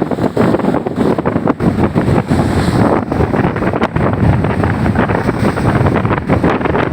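Strong wind buffeting the microphone aboard a ferry in rough seas, a loud gusty rumble with no break.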